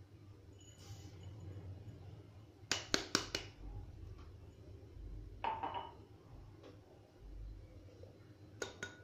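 A small drinking glass clinking against the rim of a terracotta bowl as its contents are tipped in: a quick run of four clinks about three seconds in, another about halfway, and two more near the end.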